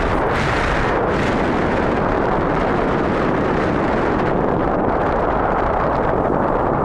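Steady wind noise buffeting the microphone of a camera carried on a paraglider in flight, from the airflow of the glider's forward speed.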